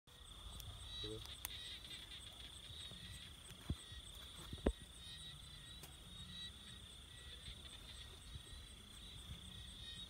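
Night chorus of crickets and other insects: a steady high-pitched trill with a faint, evenly pulsing chirp above it and short repeated chirps lower down. Two short sharp knocks stand out a little before the middle.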